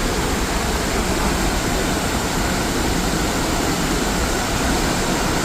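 Vernal Fall's falling water, a steady, loud rush with a deep rumble underneath.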